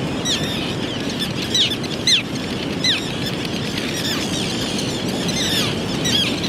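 Common terns calling: short, high, sharply falling notes, repeated irregularly, over a steady low rushing background.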